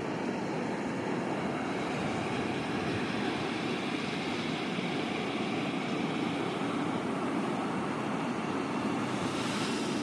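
Ocean surf breaking and washing up the beach: a steady rushing noise, with a brighter hiss near the end as a wave's foam runs in.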